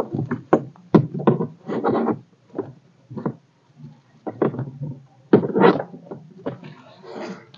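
Irregular short knocks and rustles of hands handling a fabric seat belt shoulder pad and the seat belt webbing inside a car.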